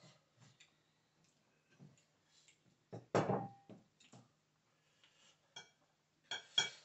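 Spoon and cutlery clinking and scraping on ceramic plates and bowls during a meal: scattered light clinks, with the loudest knock about three seconds in and a couple more near the end.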